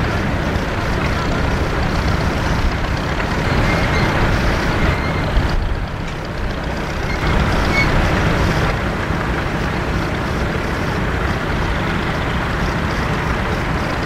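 Vintage tractor engine running steadily as it works with a plough, with a brief drop in level about six seconds in.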